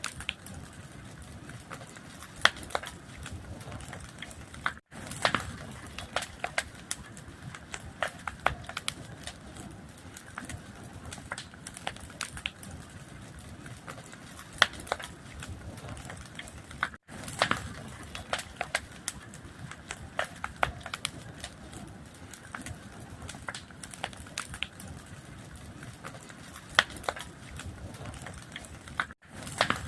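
Fire crackling: a steady hiss broken by frequent, irregular sharp pops. The sound cuts out for an instant three times, about every twelve seconds, where the recording loops.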